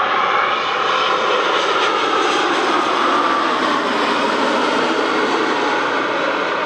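Boeing 787 Dreamliner's twin turbofan engines passing low overhead on landing approach, gear down: a loud, steady jet rush with a whine that falls slightly in pitch around halfway through.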